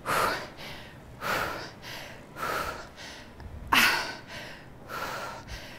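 A woman breathing hard with exertion: five short, sharp breaths, a little over a second apart.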